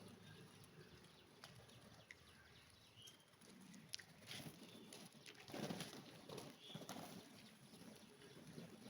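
Pigeons heard faintly: soft fluttering and rustling, a few sharp clicks, and short high chirps.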